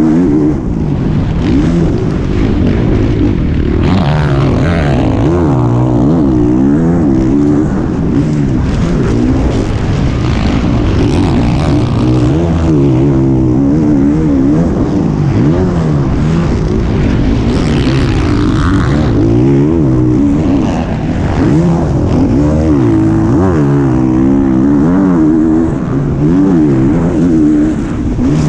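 A 450 motocross bike's engine heard on board while racing flat out. Its pitch rises and falls again and again as the throttle is worked and the gears are run through, with brief dips where the throttle is rolled off, about a second in and again near the end.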